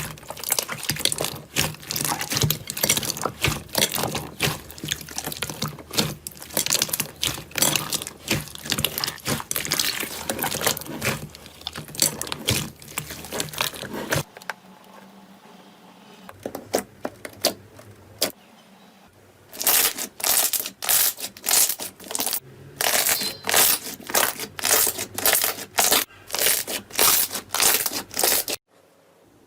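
Slime being pressed and worked by hand, with dense crackling and popping. After a quieter pause about halfway through come rhythmic presses, about two a second.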